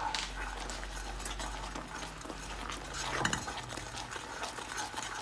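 A wooden spoon stirring and scraping thick, bubbling jaggery syrup in a nonstick pan, with scattered small clicks. The syrup is being cooked past the soft-ball stage toward a slightly firmer set.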